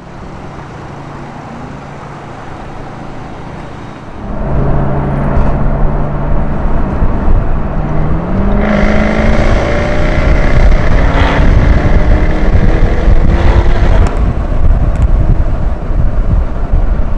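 Jaguar F-Type Project 7's supercharged V8 driving with the roof off, wind rushing over the open cabin. About four seconds in the sound gets much louder, and the engine note rises in pitch as the car accelerates.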